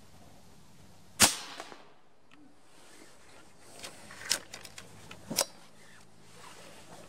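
A .22 Reximex Throne PCP air rifle fires one sharp, moderated shot about a second in. A few seconds later come a string of metallic clicks and a clunk as the side lever is cycled to cock the rifle and chamber the next pellet.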